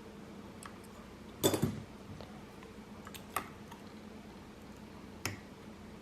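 Padlock being picked: small sharp clicks and knocks of the pick and tension wrench against the lock, with a louder cluster of clicks about one and a half seconds in and single clicks twice later.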